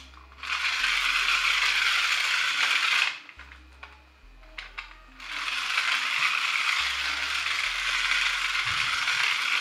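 Battery-powered toy bullet train's small electric motor and gears whirring with a rattle as it runs. It runs for about three seconds, breaks off with a few clicks, then starts again about five seconds in and runs on steadily around its plastic track.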